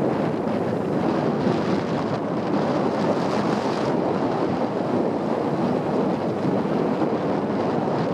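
Steady rushing wind buffeting the microphone, with no clear engine note.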